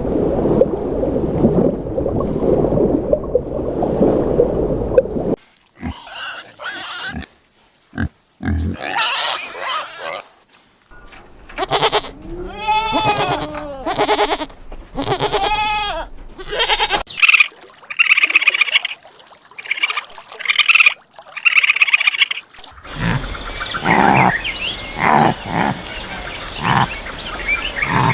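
Farm animals calling in turn. A rough, low, noisy stretch lasts about five seconds, then a run of pitched calls rising and falling in pitch, then short high-pitched calls repeated several times, and more calls near the end.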